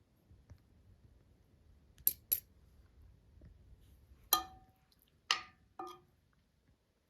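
Tableware clinking: two quick light clicks, then three louder clinks that ring briefly, like metal or china striking a plate or dish.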